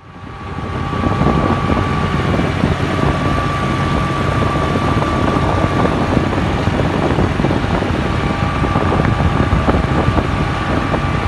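John Deere 5045D tractor's three-cylinder diesel engine running steadily as the tractor drives along a road, heard from the driver's seat, with a steady thin whine above the low drone.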